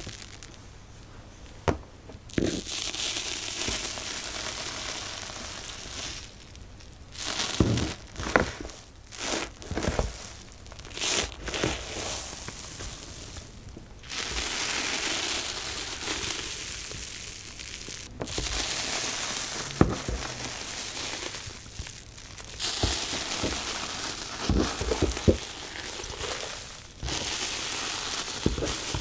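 Slime being squished, stretched and pressed by hand: long stretches of crackling and crinkling broken by clusters of sharp pops and clicks.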